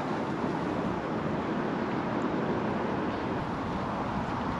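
Steady rushing ambient noise with no distinct events.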